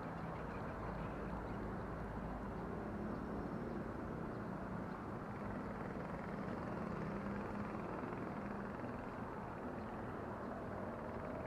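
Steady hum of road traffic, an even rumble with no single vehicle standing out.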